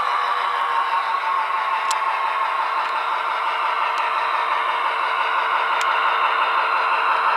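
HO-scale Broadway Limited Paragon2 SW7 diesel switcher model playing its EMD diesel engine sound through its small onboard speaker, a steady tinny engine drone as the locomotive runs slowly. A few faint clicks sound about two, four and six seconds in.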